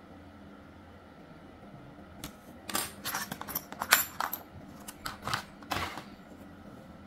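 Clear plastic blister packaging crinkling and clicking as it is handled, a run of sharp crackles from about two seconds in until about six seconds in.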